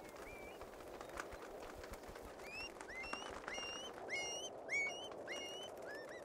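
Birds calling in short, upward-hooked whistled notes over a steady rushing background. The calls are sparse at first and come several a second from about two and a half seconds in.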